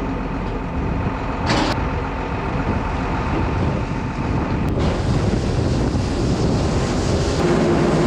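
Heavy farm machinery engine running steadily under load, with wind on the microphone. There is a brief hiss about a second and a half in, and the sound changes abruptly twice.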